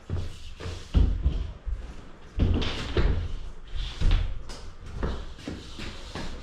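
A run of dull thumps and knocks, about half a dozen in a few seconds, with scuffing and handling noise between them.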